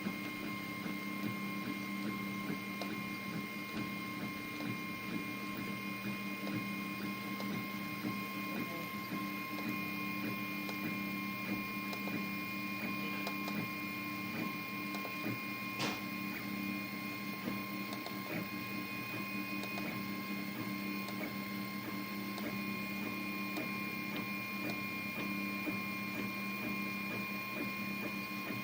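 Anet A8 3D printer running mid-print: its motors and cooling fan make a steady layered hum and whine. A single sharp click comes about sixteen seconds in.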